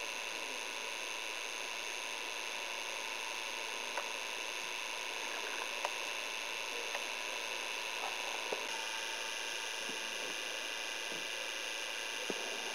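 Steady hiss of camcorder noise with faint fixed high-pitched whines, broken by a few faint, widely spaced clicks.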